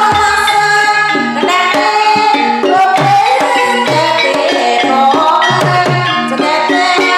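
Javanese gamelan ensemble playing a jaranan (kuda kepang) piece: a busy, stepping melody of struck pitched notes over hand-drum strokes.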